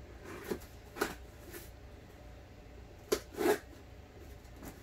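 Box cutter slicing the packing tape on a cardboard shipping box, with a handful of short scrapes and rustles of the cardboard being handled.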